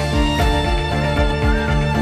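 Background music: sustained melodic notes over a steady beat, with a string-like lead.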